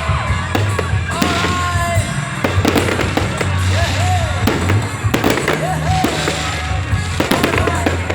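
Fireworks going off, with a continuous run of bangs and crackles, over music with a steady bass line.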